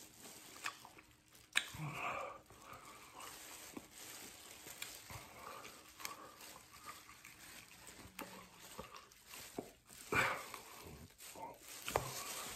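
A man eating a chicken wing: biting and chewing noises, with a few sharp clicks and knocks, the loudest about two seconds in and again near ten seconds.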